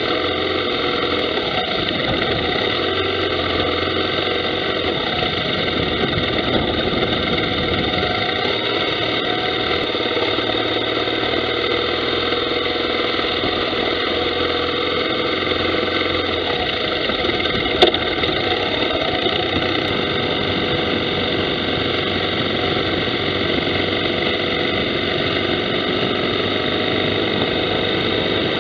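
Motorcycle engine running under way with wind noise, picked up by a mounted action camera and sounding steady and distorted. A single sharp click comes about eighteen seconds in.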